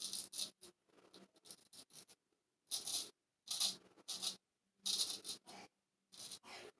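Person Special Solingen straight razor scraping through lathered beard stubble in a series of short, crisp strokes on the first pass of the shave.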